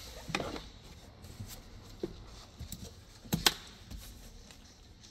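Handling noise as parts are packed into a cardboard filter box: faint rustling with three light knocks, the sharpest about three and a half seconds in.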